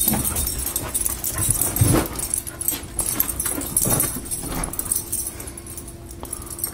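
A dog whining a few times in short bursts, excited while chasing a laser pointer's dot.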